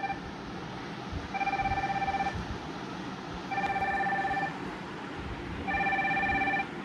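Incoming-call ringtone: a chord of electronic tones with a fast flutter, sounding for about a second and repeating roughly every two seconds. Three full rings sound, and the tail of one more is heard at the start.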